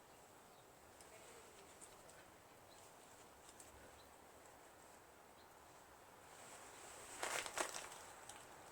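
Near silence with faint handling noise, then a brief cluster of light clicks and knocks about seven seconds in, from small metal engine parts being handled and fitted.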